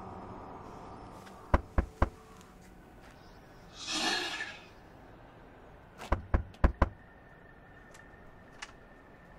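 Knuckles knocking on a wooden front door: three knocks, a pause, then a quicker set of four. A short breathy rush of noise falls between the two sets.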